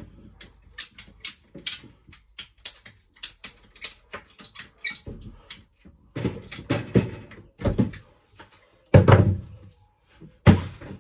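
Plastic shower drain hose and fitting being handled and worked: a run of sharp irregular clicks and taps, then rustling and several heavier knocks, the loudest about nine seconds in.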